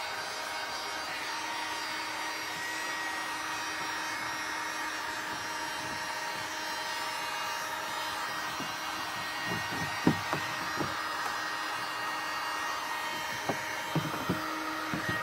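Handheld electric heat gun running steadily, its fan blowing with a faint whine, as a flattened PVC pipe rib is heated to soften it for bending. From about ten seconds in, a few short knocks and taps come through as the plastic rib is handled.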